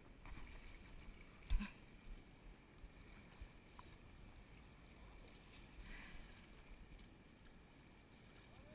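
Quiet river-bank ambience of faint water and wind noise, with one dull thump about one and a half seconds in.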